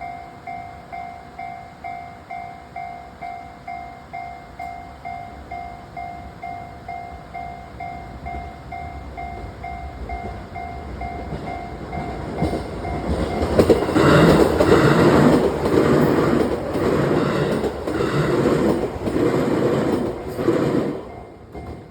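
Japanese level-crossing warning bell ringing in steady pulses about twice a second. From about twelve seconds in, a train passes over the crossing: its wheels clack in a regular rhythm over the rail joints for about nine seconds, loud enough to cover the bell, and the sound stops abruptly near the end.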